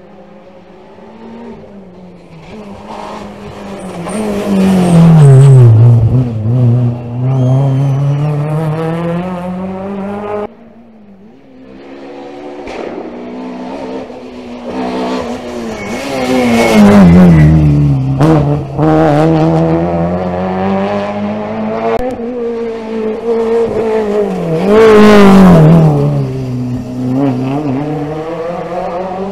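Rally cars driven flat out past the spot one after another, engines revving hard and dropping in pitch with each gear change and as each car goes by. The loudest passes come about five, seventeen and twenty-five seconds in, with a sudden break about ten seconds in.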